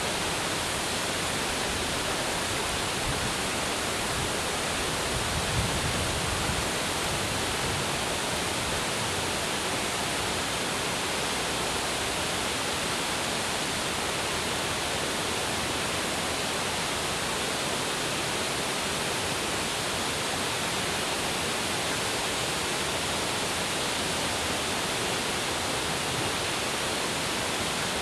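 Steady rush of water pouring over a wide dam spillway, an even, unbroken hiss.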